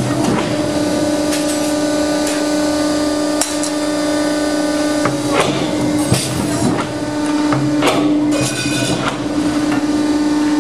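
Industrial power shear running with a steady hum, with several sharp metallic clanks as the hold-downs and blade come down to cut aluminium plate.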